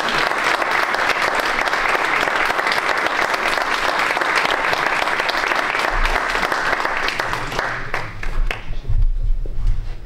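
Audience applauding: dense clapping that dies away about eight seconds in, ending in a few last claps, followed by a low rumble.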